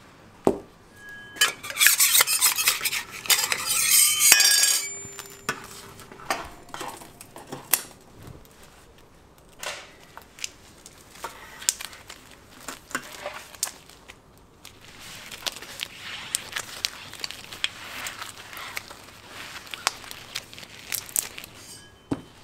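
Metal tools scraping and tapping on a work surface as hard candy is worked by hand. A loud scrape about two seconds in, scattered sharp taps, and a longer, softer scraping stretch near the end.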